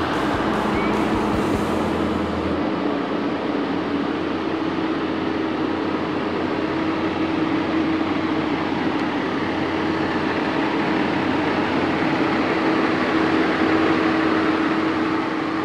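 Engine running steadily: an even mechanical drone with a constant hum, unchanging throughout.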